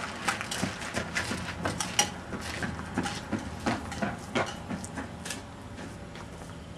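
Irregular light clicks and knocks, several a second, thinning out and fading after about five seconds.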